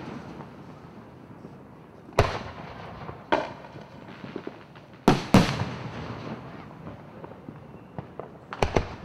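Aerial firework shells bursting overhead: a sharp bang about two seconds in, another a second later, two close together around five seconds, and a pair of lighter cracks near the end. Each bang trails off in a rolling echo.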